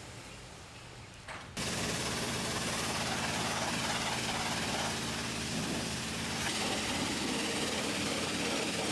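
Pressure washer wand blasting high-pressure water at a trailer: a loud, steady hiss with a low hum underneath, setting in about a second and a half in.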